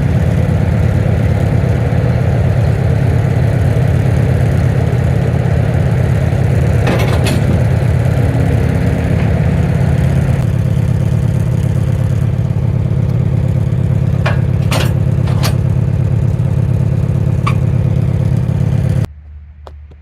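Engine running steadily while a log is loaded onto the sawmill, with a few sharp knocks about seven seconds in and again around fourteen to seventeen seconds in. It cuts off suddenly near the end.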